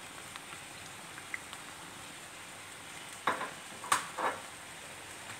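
Corn vermicelli, pak choi and egg sizzling steadily in a wok over high heat, with a few short clicks or knocks a little past the middle.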